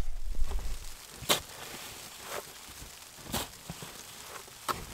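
A hand tool digging into packed snow: four short crunching strokes, about a second apart.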